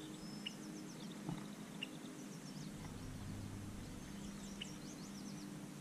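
Quiet outdoor ambience with small birds chirping briefly now and then, and a couple of faint ticks about a second and a half in.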